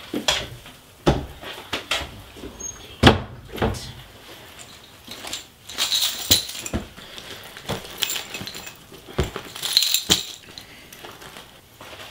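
Rummaging and handling sounds: a run of irregular clicks, knocks and rustles as things are shuffled in a closet and pulled out of a handbag, with one louder knock about three seconds in.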